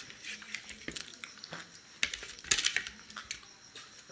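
Small eating noises at a table: chewing, a sip of water and light clicks against a plate, coming as scattered short clicks and crackles, with a louder cluster about two and a half seconds in.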